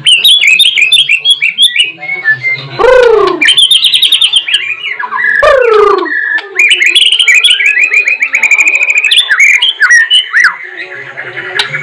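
White-rumped shama singing loudly: a fast, varied run of chirps, trills and rapid clicking notes, broken twice by long falling swoops.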